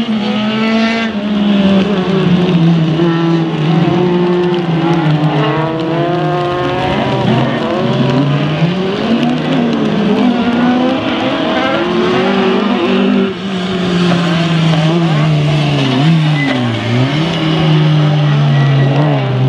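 Rallycross cars racing flat out, several engines heard at once at high revs, their pitch repeatedly dropping and climbing again as the cars work through the corners.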